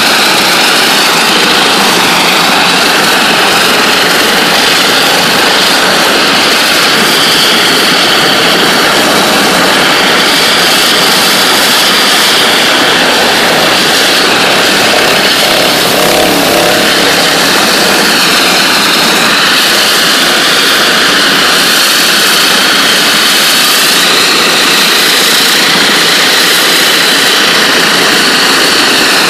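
NLB Spin Jet ultra-high-pressure water-jetting tool blasting the surface at 40,000 psi through its rotating nozzles: a loud, steady rushing hiss.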